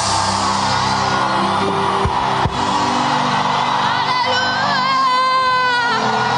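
Church praise music: sustained keyboard chords, with a voice singing out long, wavering notes over them for a couple of seconds in the second half.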